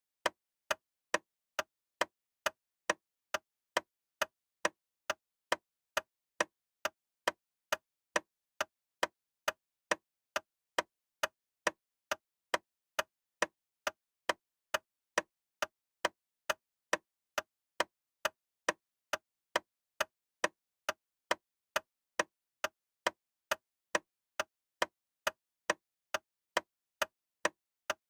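Steady, evenly paced ticking: sharp clicks a little over two a second, each cut off clean with nothing between them.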